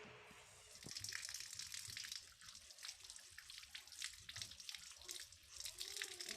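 Tap water running and splashing into a sink, starting about a second in.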